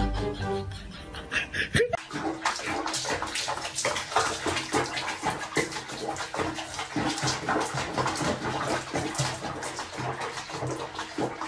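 Music for about the first two seconds, then water splashing and sloshing in a plastic basin where a cat sits in soapy bathwater, with many irregular small splashes.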